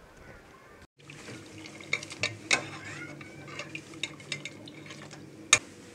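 Metal ladle stirring and scooping meat in a pot of broth, starting about a second in, clinking against the metal pot several times with the sharpest clink near the end, over a steady low hum.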